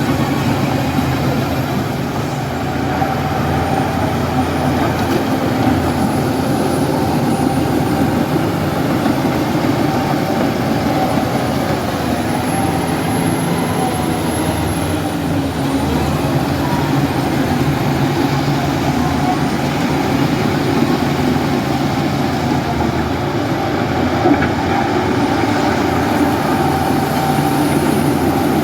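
Shantui bulldozer's heavy diesel engine running steadily under work, with a constant low drone.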